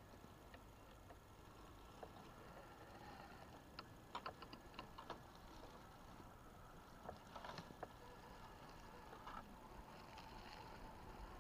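Near-silent forest ambience with scattered faint clicks and crackles, bunched about four to five seconds in and again around seven to eight seconds in: a scale RC crawler truck's tyres rolling over dry leaves and twigs.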